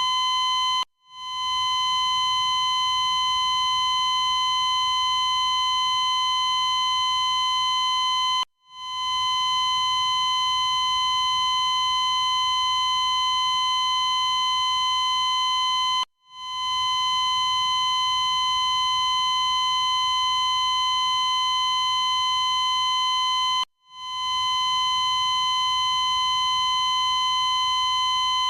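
Cardiac monitor's continuous flatline tone, one steady high-pitched beep held without a break. It cuts out suddenly four times, about every seven and a half seconds, and each time swells back within about a second: the glitch of a faulty monitor.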